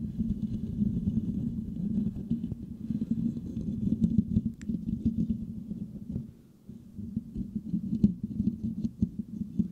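Fingers scratching and rubbing the metal mesh grille of a Blue Yeti microphone, heard as a dense, low, crackling scratch right on the microphone. It eases off briefly about six and a half seconds in, then carries on.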